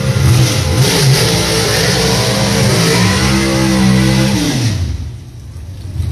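Drag-racing engine revving hard, its pitch gliding and stepping up and down. About five seconds in it drops away, and engine sound picks up again near the end.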